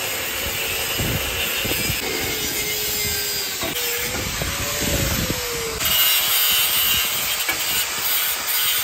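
Angle grinder with a cut-off wheel cutting through steel rectangular tubing: a continuous harsh grinding hiss over the motor's whine, which wavers in pitch as the wheel is loaded in the cut. The cutting grows brighter and louder about six seconds in.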